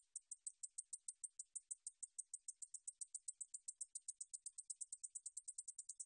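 줄베짱이 katydid singing: a long series of short, high-pitched ticks that speeds up from about seven to about ten a second.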